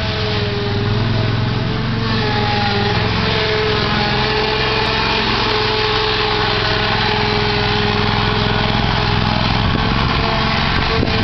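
Toro Z-Master zero-turn mower's engine running steadily at an even pitch as it drives across a lawn pulling a tow-behind dethatcher.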